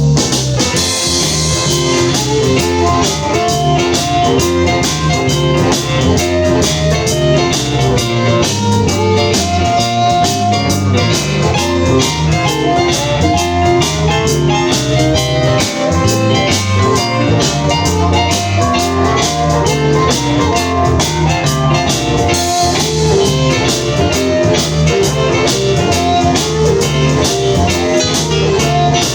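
Blues band playing an instrumental break between sung verses: electric guitar over a steady drum kit beat.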